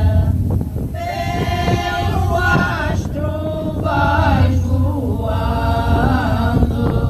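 A women's group singing cante alentejano, the unaccompanied polyphonic folk song of the Alentejo, in slow, long-held phrases with brief breaths between them.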